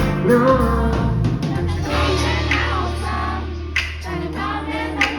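A pop song playing: brief sung vocal phrases over a held bass note and sustained chords, with a couple of sharp percussive hits near the end.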